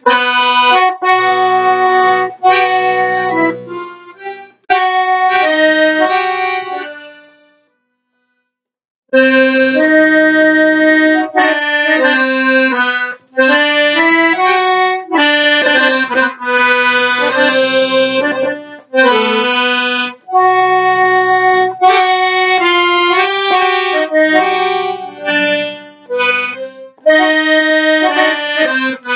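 Piano accordion playing a solo taqasim, an unaccompanied improvisation: melodic phrases on the treble keyboard over bass notes from the left-hand buttons. About seven seconds in the playing dies away to a pause of a second and a half, then resumes in longer runs.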